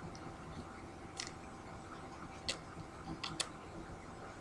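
Trading cards being handled: four short, light clicks of card stock, about a second in, then twice near the middle and once near the end, over a faint steady background hiss.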